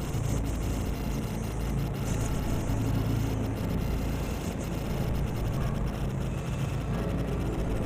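Steady low rumble of wind buffeting the microphone, with faint crackles of footsteps through brush.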